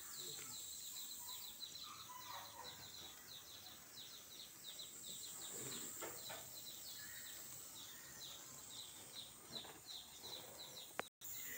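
Faint outdoor ambience: a steady run of short, high chirps repeating several times a second over a high hiss. Near the end there is a single sharp click and a brief cutout of all sound.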